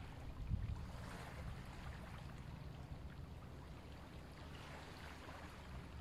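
Faint steady rush of flowing water, with soft, hissing swells of ujjayi (ocean) breathing about a second in and again around five seconds in.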